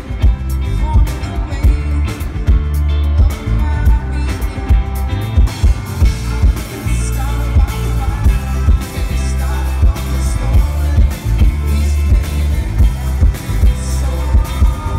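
A live rock band playing electric guitar, bass guitar and drum kit with a steady beat and heavy bass, with a singer's voice, recorded from the audience.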